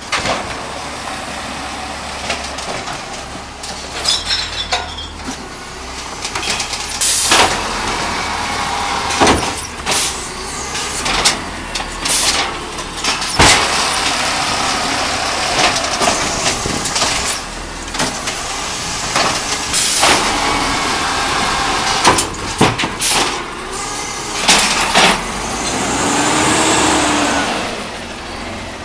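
Brand-new natural-gas Peterbilt 320 automated side-loader garbage truck collecting curbside carts. The engine runs under repeated clanks and bangs as the hydraulic arm grabs, dumps and sets down the carts, with several bursts of air hiss.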